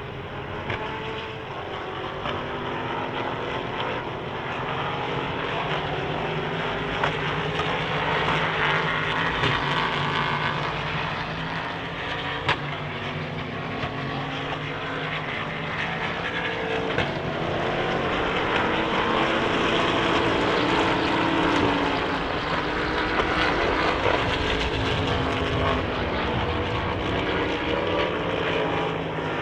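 Several race car engines heard from trackside, overlapping, their pitches rising and falling as cars accelerate, shift and pass. The sound swells twice as cars come closer, with a few sharp cracks in between.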